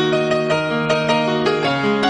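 Background piano music: a melody of changing notes over held lower notes.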